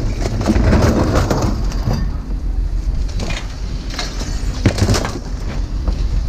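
Scrap metal clattering and clanking over a steady low rumble, with a sharp metallic knock a little after the middle.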